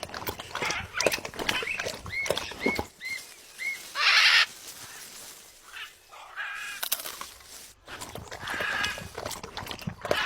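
Pet lovebirds chattering and calling, with four short chirps about two seconds in and one loud harsh screech about four seconds in.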